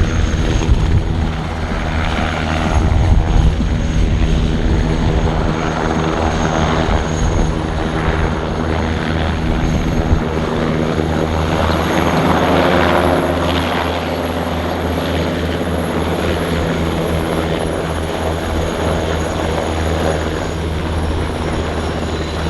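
Military helicopter's rotors and turbine engines running steadily close by, swelling a little louder a few seconds in and again about halfway through.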